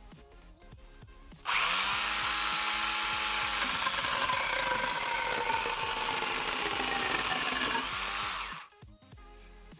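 Angle grinder driving a chainsaw-adapter bar and chain, switched on about a second and a half in and cutting through a wooden beam. Its whine drops in pitch as the chain bites into the wood. It stops sharply near the end.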